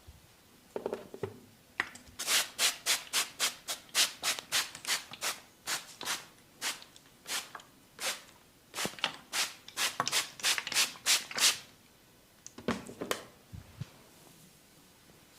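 Massage rubbing: hands rubbing back and forth over the body in quick, even strokes, about three a second, a dry swishing friction sound. It stops for a moment, then a few more strokes come near the end.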